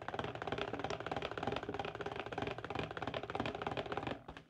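Electric stick blender running submerged in a pitcher of soap batter: a steady, fast clattering buzz of the blade churning the liquid. It cuts off suddenly near the end.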